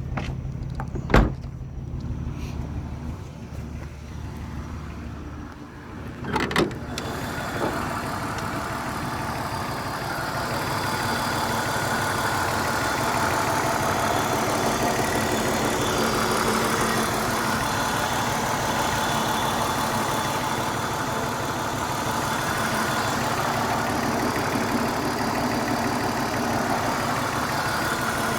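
BMW 328i six-cylinder engine idling while, by the owner's account, running on only five cylinders from a misfire. A sharp click comes about a second in and a short noise about six and a half seconds in, after which the engine sound is louder and fuller.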